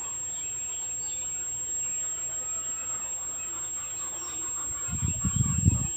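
Steady high-pitched whistle from the circuitry of a Panatone CRT television switched on with a picture; the technician traces it to a loose supply block. Birds chirp faintly in the background, and about five seconds in a short burst of low knocking is loudest.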